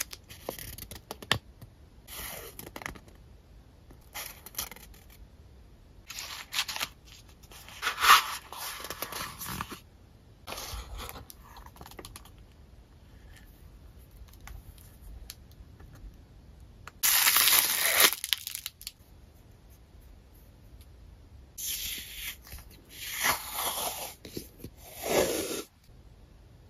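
Paper being handled: small printed paper pieces rustle and crackle between the fingers, then a roll of paper tape is peeled and unrolled with loud ripping sounds, one about a second long past the middle and a run of shorter ones near the end.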